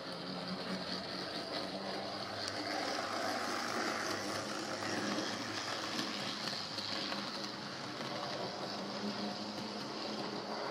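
Steady mechanical running noise of a train, swelling for a few seconds partway through and easing again near the end.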